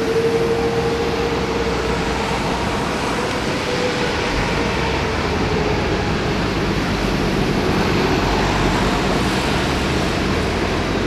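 Boeing 777-300's Rolls-Royce Trent jet engines running as the airliner rolls along the runway: a steady whine that fades out about halfway through, over a roar whose deep rumble grows from about four seconds in.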